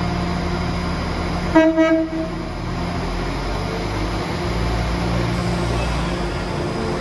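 West Midlands Railway Class 196 diesel multiple unit sounds one short horn blast about a second and a half in. Under it, its diesel engines keep up a steady low rumble as it moves past along the platform.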